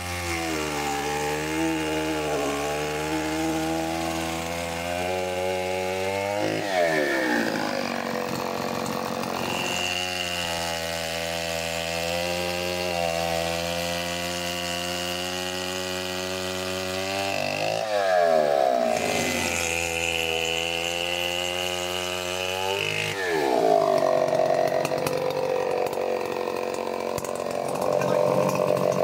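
Four-stroke 105 cc petrol chainsaw with a 30-inch bar idling steadily, then revving up and cutting into a log about seven seconds in. It drops back to idle, revs up into another cut at around eighteen seconds, and cuts again near the end.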